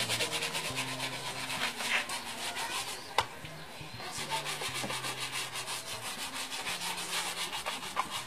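A shoe brush scrubbing a leather shoe in quick, even back-and-forth strokes, several a second, with a single sharp click about three seconds in.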